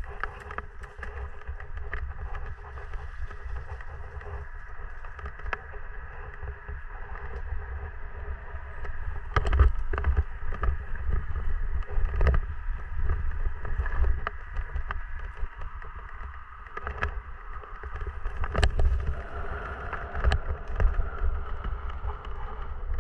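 Mountain bike ridden over a dirt and gravel trail, heard from a camera mounted on the bike or rider: a steady low rumble of wind and vibration on the microphone, broken by frequent knocks and rattles as the bike hits bumps, loudest about ten seconds in and again near the end.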